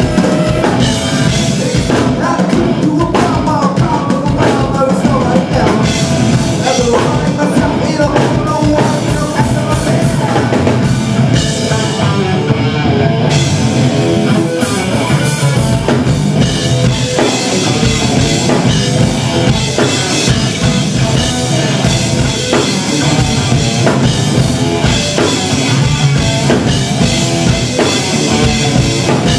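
A live rock band playing loud, with the drum kit and cymbals close up and prominent in the mix.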